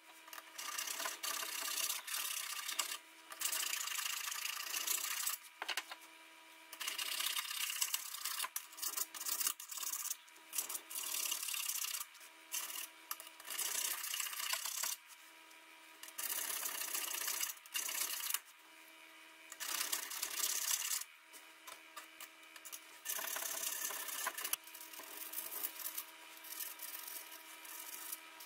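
Hand filing on a steel blacksmith's hammer-chisel head held in a bench vise: runs of scraping strokes, each run a second or two long, broken by short pauses.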